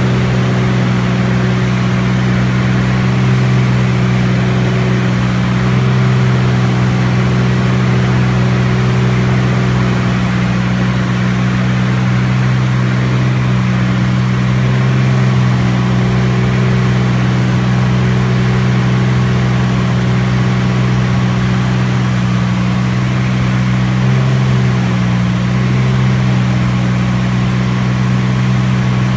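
Beechcraft T-34 Mentor piston engine and propeller droning steadily at cruise power, with only slight swells in level.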